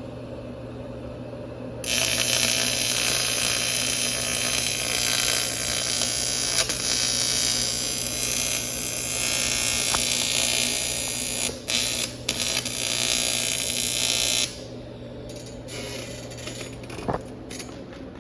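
TIG welding arc: a loud steady hiss starts about two seconds in, breaks off briefly twice, and cuts off sharply a few seconds before the end. A steady low hum runs under it throughout.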